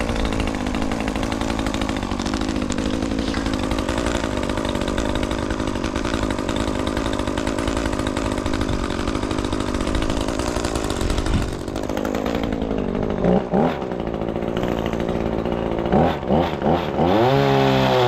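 Gas chainsaw running under load, cutting through storm-felled tree limbs for about twelve seconds. It then drops back and is revved in several short bursts near the end.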